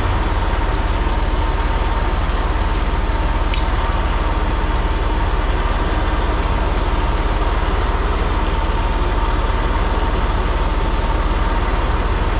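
Semi-truck tractor's diesel engine idling steadily, with a steady thin whine over the rumble, left running to build air pressure in the air brake system.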